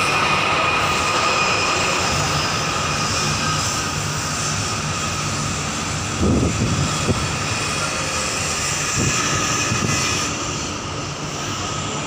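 Steady drone of marine engines with a faint high whine, and a few low thumps about six to seven seconds in and again near nine seconds.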